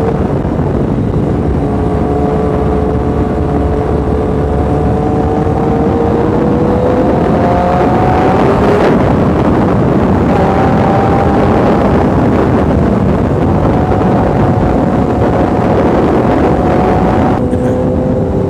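Sport bike engine cruising at road speed, heard from the rider's seat, with heavy wind rush over the microphone. The engine note rises slowly for the first several seconds, breaks briefly about nine seconds in, holds steady, then changes again near the end.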